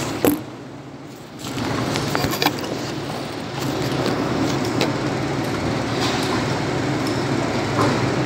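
A knock as the phone is handled and set down, then a steady low engine hum with a few small clicks.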